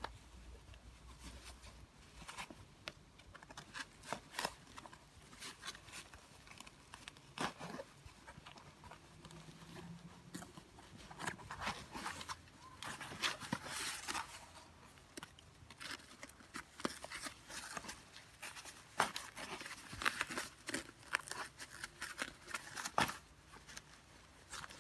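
Padded fabric of a stroller baby-nest insert and its nylon harness straps rubbing and rustling as they are pulled through and smoothed by hand, in irregular short scrapes, busiest about halfway through.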